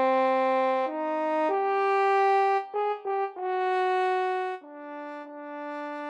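Background music: a slow melody of long held notes in a mellow brass, horn-like sound, stepping up and down through about seven notes.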